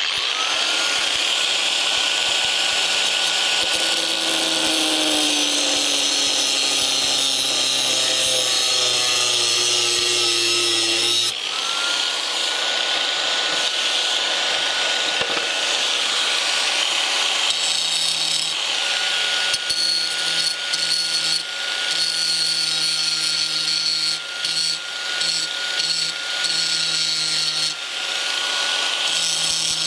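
Corded Black & Decker angle grinder with an abrasive disc, starting up with a rising whine and then running. About eleven seconds in it briefly stops and spins up again. In the second half it grinds in uneven, stop-start passes against the steel of a van seat's swivel base, cutting away the lug that stopped the seat turning full circle.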